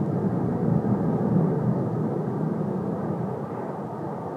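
Saab JAS-39 Gripen fighter jet in a tight high-speed turn, its jet engine noise swelling to a peak about a second in and then slowly fading.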